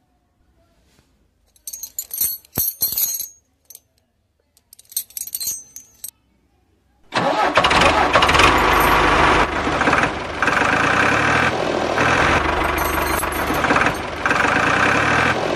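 A motor starts abruptly about seven seconds in and keeps running loudly and steadily with a dense mechanical drone. Before it there is near silence, broken by two short spells of small clicks and crackles.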